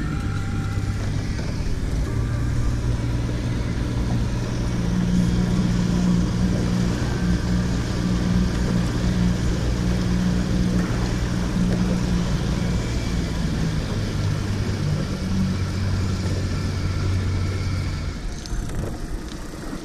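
Outboard motor running steadily as the boat moves under way, a little louder from about four seconds in, then easing off about two seconds before the end.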